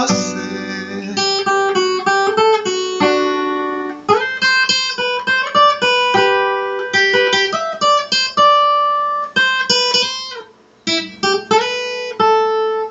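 Solo acoustic guitar playing an instrumental passage: quick runs of picked single notes and chords, with a brief pause near the end.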